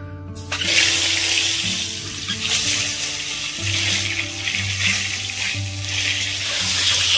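Whole boiled, peeled eggs sizzling in hot oil in a kadai. The loud sizzle starts abruptly about half a second in, as the eggs go into the oil, then carries on steadily.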